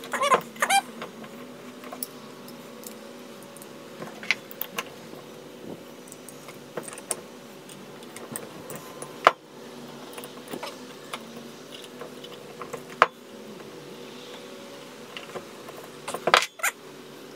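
Metal-on-metal clinks and clicks as a wrench and a thin steel rod work on a stainless steel butterfly valve to strip off its handle lock: a few sharp, separate clinks spread over a steady low hum.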